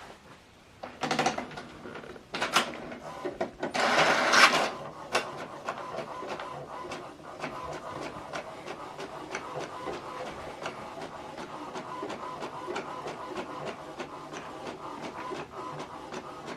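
HP Deskjet 3700-series inkjet printer printing a page: a few loud mechanical bursts in the first few seconds as it starts and takes in the sheet, then a steady whir with rapid, even ticking as it prints.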